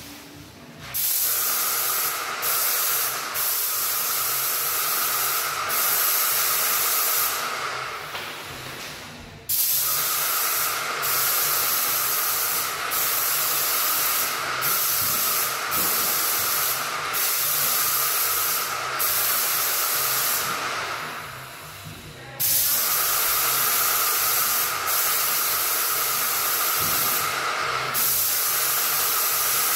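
Airless paint sprayer's gun hissing as primer is sprayed onto new drywall, in long passes broken by short trigger releases. The spraying stops for a second or two about a third of the way in and again about two-thirds of the way in, and a faint low pulsing runs underneath.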